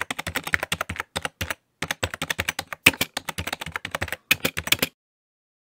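Computer keyboard typing, rapid keystroke clicks in short runs with brief pauses, stopping about five seconds in. It is a sound effect for text being typed out on screen.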